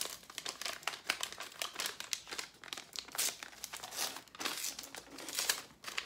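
Gift wrapping crinkling and rustling in quick, irregular crackles as a small present is unwrapped by hand.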